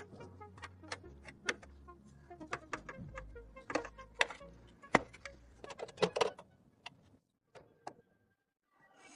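Irregular light clicks and taps of computer parts being handled and fitted together, over a faint low hum that stops about seven seconds in, followed by near silence.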